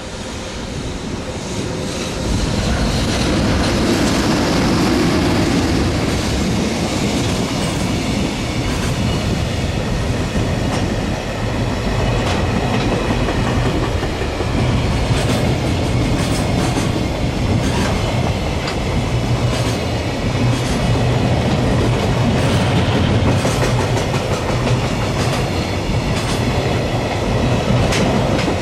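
Freight train hauled by an electric locomotive passing close by: a loud, steady rumble that builds over the first two or three seconds, with the wheels clacking over rail joints throughout.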